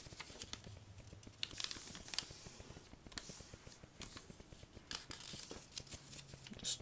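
A sheet of paper being folded and creased by hand, with faint short crinkles and scrapes of paper rubbing on paper.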